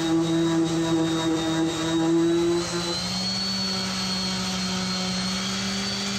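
Electric random orbital sander running steadily on a wooden spatula. Its motor pitch steps up a little about three seconds in, as the sander comes off the bench-supported work and is held against the spatula in the hand, which eases the load.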